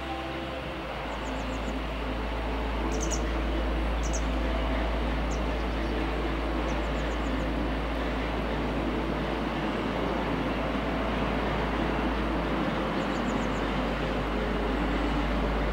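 Steady outdoor rushing noise with a heavy low rumble, over which small birds give brief high chirps and trills several times.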